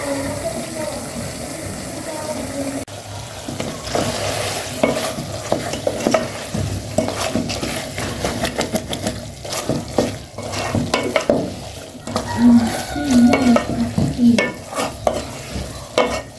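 Food frying and sizzling in a hot pan while a utensil stirs it, with frequent scraping clicks of the utensil against the pan.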